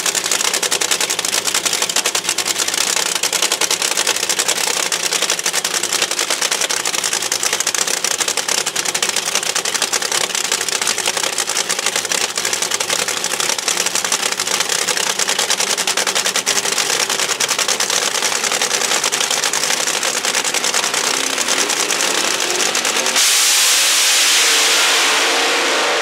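Supercharged fuel altered drag car's engine idling on the starting line with a fast, harsh crackle. About three seconds before the end it launches at full throttle, suddenly much louder and rising in pitch, then starts to fade as it pulls away down the track.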